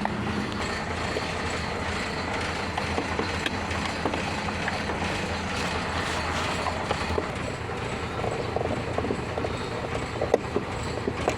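Steady mechanical running noise with a low hum, and scattered light clicks and knocks that come more often in the second half.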